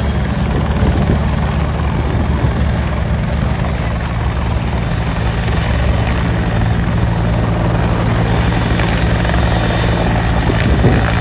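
Helicopter hovering low overhead: the steady, even beat of its rotor blades over the engine's running noise.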